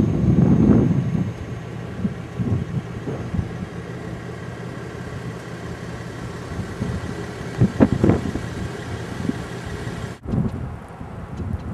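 Motor vehicle running, a steady low engine and road rumble with louder swells about half a second in and about eight seconds in. The sound changes abruptly about ten seconds in.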